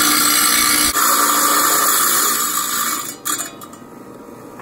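Small electric tile saw with a diamond blade cutting through a geode: a loud, high grinding hiss that stops about three seconds in as the stone comes off the blade, leaving the saw running more quietly.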